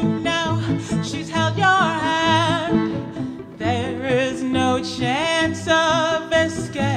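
A woman singing live into a microphone with a wide vibrato, holding notes and sliding up between them, over a repeating low accompaniment with bowed strings.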